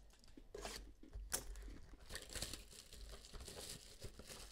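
Faint tearing and crinkling of the wrapping and cardboard of a box of trading cards as it is opened, in short scattered rustles with a few sharper rips.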